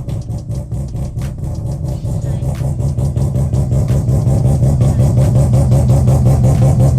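Car engine running at low revs with a fast, even pulsing note, growing gradually louder while the car is moved out of the garage.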